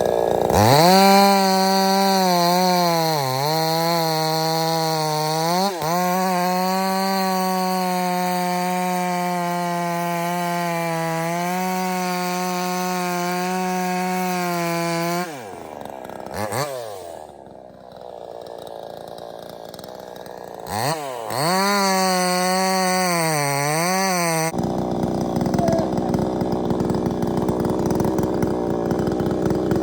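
Budget 60cc-class two-stroke gas chainsaw running at high revs, its pitch dipping briefly twice and then holding steady. About halfway through the throttle drops and the revs fall away, then they rise again before giving way to a rough, noisy running sound with no clear pitch near the end.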